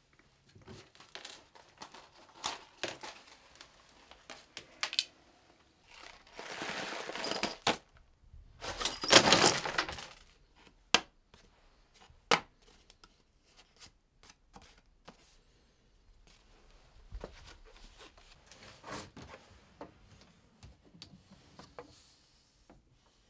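A broken picture frame and loose glass being handled on a wooden floor: small clicks and clinks of glass and frame, with two longer rustling, scraping noises about six and nine seconds in, the second the loudest, and a couple of sharp single clicks after them.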